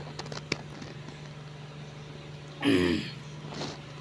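One short throat-clear a little under three seconds in, the loudest sound here, over a steady low hum. A few light clicks of a spoon against a ceramic bowl near the start.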